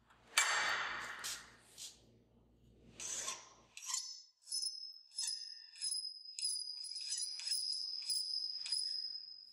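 Coarse tooth hand file rasping across a steel workpiece clamped in a bench vise. After a few scraping sounds in the first seconds, quick regular strokes come about two to three a second from about halfway in, with a high ringing tone running under them.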